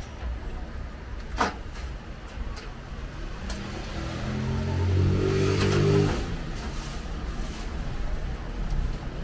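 A motor vehicle passing in the street, its engine growing louder to a peak about five to six seconds in and then dropping away, over a steady low hum. A sharp click sounds about a second and a half in.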